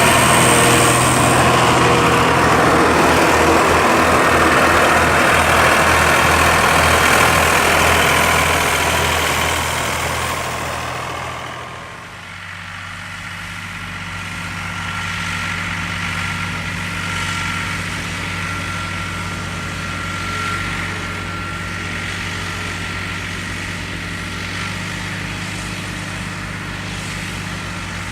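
Farm tractor engine running with a steady low hum. It is loud for about the first ten seconds, then falls away to a quieter, steady hum.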